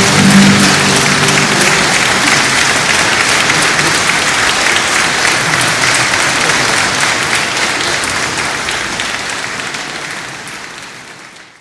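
Audience applause, many hands clapping, fading out over the last few seconds. The last sustained notes of the music die away under it in the first two seconds.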